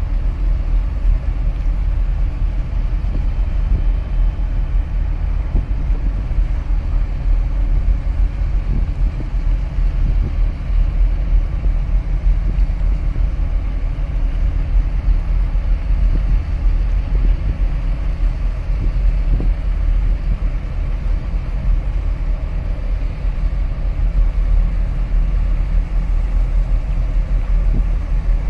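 Steady low rumble and drone of the container ship CMA CGM Mumbai's machinery as the ship moves slowly past close by, with a few faint steady tones in the low hum.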